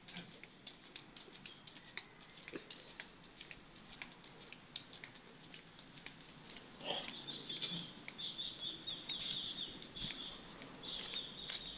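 Footsteps of flip-flops slapping irregularly on a concrete path. About seven seconds in, a high chirping sound joins.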